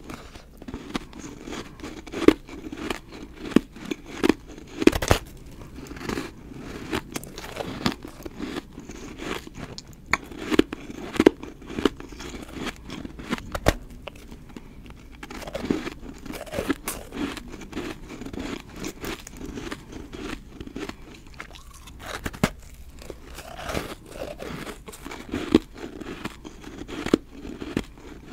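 Biting and chewing snowballs made of refrozen powdery ice, kept frozen so they are dry and powdery inside: a close run of crisp crunches, with louder bites every few seconds.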